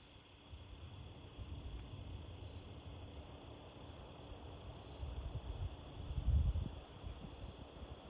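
Gusting wind buffeting the microphone as an uneven low rumble that swells and fades, strongest about five to six and a half seconds in.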